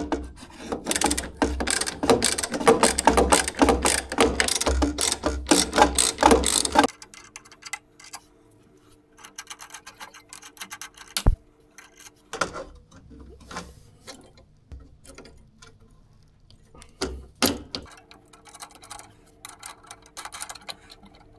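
Hand ratchet wrench clicking rapidly as it turns a terminal nut on a cinema projector's lamp power supply, for about seven seconds. After that come a few separate clicks and knocks.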